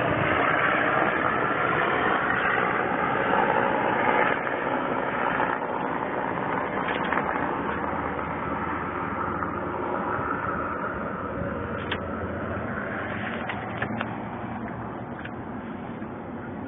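Motor vehicle engine noise that slowly fades away, with a few sharp clicks in the second half.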